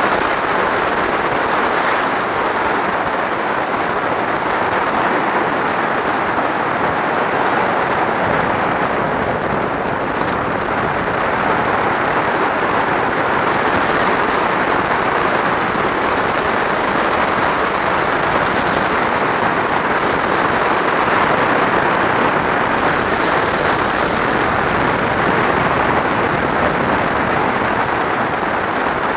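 Steady rush of wind and road noise from a motorcycle ridden at speed, picked up by a helmet-mounted camera, with the bike's engine blended in and no distinct engine note standing out.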